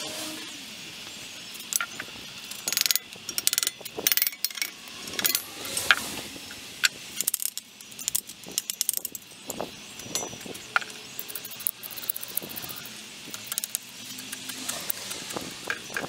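Hand work on a small electric motor's metal housing: irregular clinks, knocks and scrapes as the fan cover is taken off and a hand tool is worked into the motor end.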